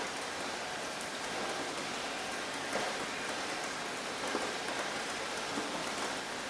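Steady rain falling on a surface, an even hiss with scattered individual drops ticking through it.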